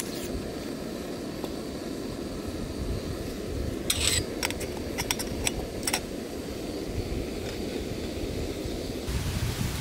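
Canister gas stove burner running with a steady low rush, starting just after a click at the start. Between about four and six seconds in, a few light metal clinks as a lid is set on a small metal teapot.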